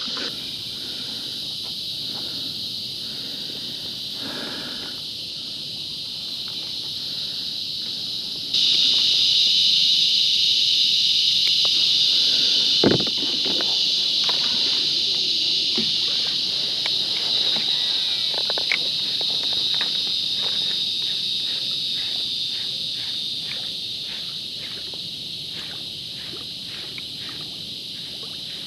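A steady, high-pitched insect chorus that grows suddenly louder about nine seconds in and slowly eases over the second half. A single knock comes about thirteen seconds in, and faint ticks follow at about two a second through the second half.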